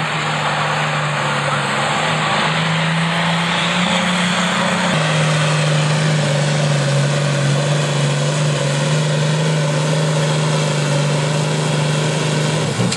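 A pulling tractor's engine running hard under full load as it drags a weight-transfer sled. The drone is loud and steady, and its pitch drops about five seconds in as the engine lugs down against the sled.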